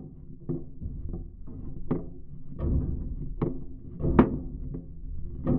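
Rusted steel frame rail of an old truck tapped by a gloved hand, heard through a geophone contact microphone clamped to the metal. It gives several low thuds at uneven spacing, each with a pitched, drum-like ring, the loudest about four seconds in.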